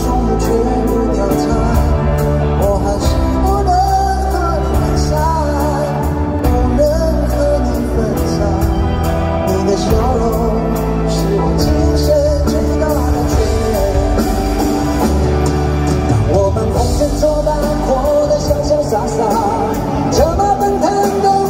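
A live pop-rock band with acoustic and electric guitars, bass and drums playing a ballad through an arena sound system, with a wavering melody line over the band.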